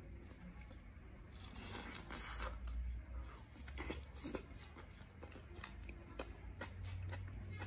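A man biting and tearing meat off a chicken piece, then chewing it, with a longer stretch of tearing early and scattered short crunchy clicks after.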